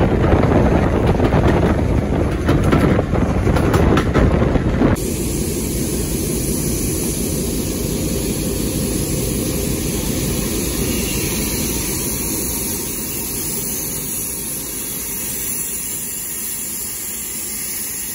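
Wind buffeting the microphone and the low rumble of a moving railway coach, heard from an open carriage window. About five seconds in, this cuts to a standing BR Standard Class 4MT steam locomotive hissing steam steadily; the hiss eases slightly near the end.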